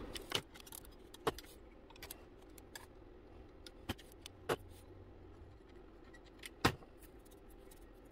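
Scattered light metallic clicks and taps, a handful of them sharper, as a small soldered brass stuffing tube and a thin steel shaft rod are handled and fitted together on a workbench.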